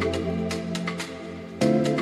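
Background music: soft sustained chords that change to a new chord near the end, with a light ticking beat over them.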